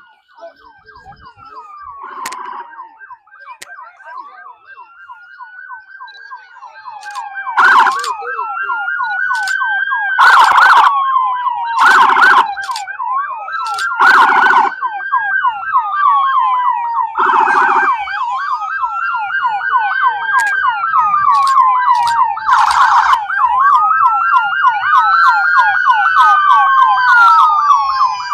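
Emergency vehicle siren wailing, its pitch rising and falling every two to three seconds. It grows much louder about seven seconds in as it approaches. Several short, loud blasts cut through the siren.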